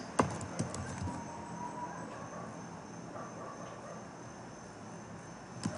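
A few computer keyboard keystrokes in the first second, as a word is typed, then a faint steady background with a constant thin high-pitched whine.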